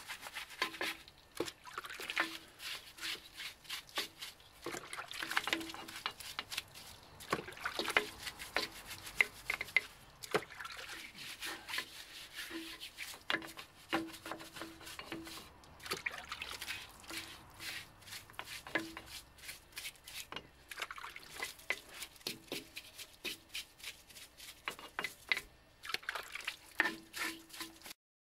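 A brush scrubbing a wet, degreaser-soaked steel drum brake backing plate: irregular scratchy scrubbing strokes and small knocks, with wet dripping and trickling as the water-based degreaser is worked and washed off. The sound stops abruptly just before the end.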